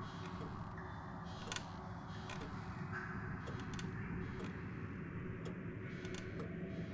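A clock ticking about once a second over a steady low background hum.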